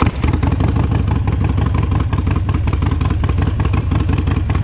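Harley-Davidson Sportster 1200's V-twin engine running steadily, with a rapid, even exhaust beat and a deep low rumble.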